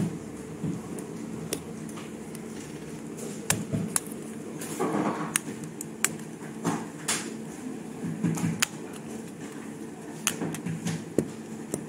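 Scattered sharp clicks and taps of a Vivo V25e smartphone's parts being handled and worked apart by hand during a teardown, with a rougher scraping stretch about five seconds in.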